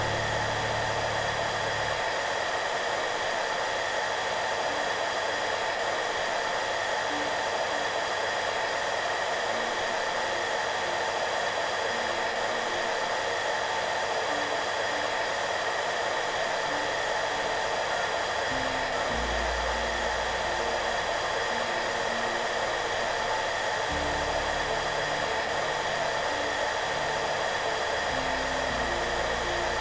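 Hair dryer running steadily, a constant even whoosh with a faint steady whine in it, used as white noise. Soft low music notes come and go underneath, fuller in the last third.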